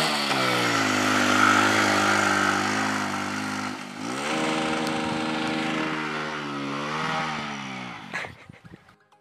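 Hero Splendor motorcycle's small single-cylinder four-stroke engine running hard in low gear through soft sand. It eases off briefly about four seconds in, picks up again, then sags in pitch as the bike labours up a dune and cuts off suddenly near the end.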